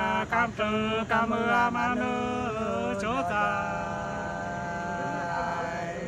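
Two men singing hát sli, the Nùng folk love-song style, unaccompanied in a free, chant-like manner, with bending, ornamented notes early on and one long held note through the second half.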